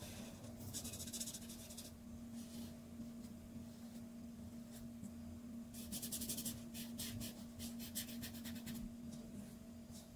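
Art marker tip stroking across paper in short scratchy bursts, with a run of quick back-and-forth strokes from about six to nine seconds in. A low steady hum runs underneath.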